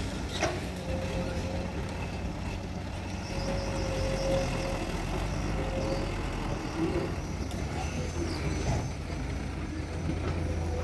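Heavy diesel earthmoving machinery running steadily, with a thin steady whine over the low engine hum and a couple of sharp knocks, one just after the start and one near the end.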